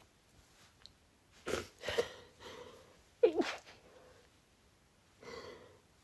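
A woman sneezing repeatedly in short, sharp bursts: a quick pair about a second and a half in, a sharper one around three seconds in, and a softer, breathier sound near the end.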